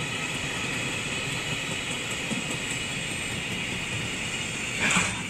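JR Freight container train's wagons rolling past, wheels running over the rails and clattering over the rail joints in a steady rolling noise. A brief louder burst about five seconds in.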